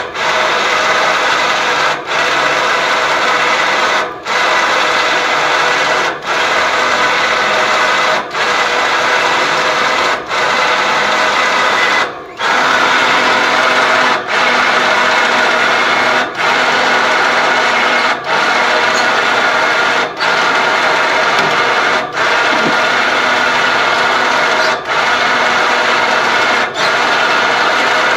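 Battery-powered motor on the antenna lift running steadily as it winches the tower antenna up, its whir dipping briefly about every two seconds.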